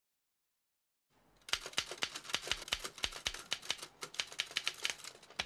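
Manual typewriter being typed on at speed: a quick, uneven run of sharp key strikes, about six a second, starting about a second and a half in.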